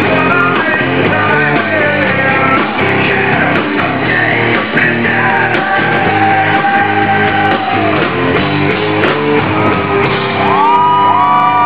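Hard rock band playing live: guitar, bass and drums under a male lead vocal, with long held sung notes near the end.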